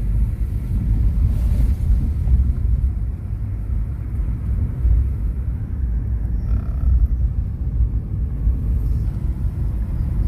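Steady low rumble of a moving car: road and engine noise.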